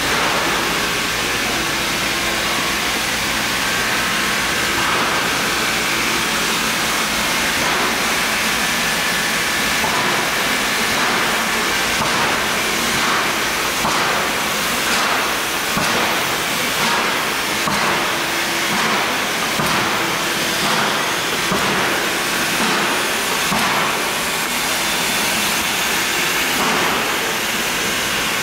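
Soviet freight steam locomotive hissing steam. From about ten seconds in, slow, evenly spaced exhaust chuffs come through at a bit over one a second.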